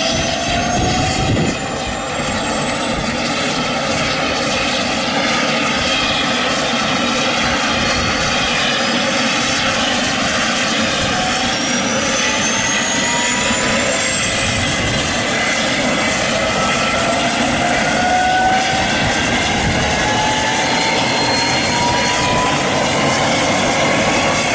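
Airbus Helicopters AS355N Ecureuil 2 twin-turbine helicopter starting up: a turbine whine rising slowly and steadily in pitch as the engine spools up, over a steady rushing noise.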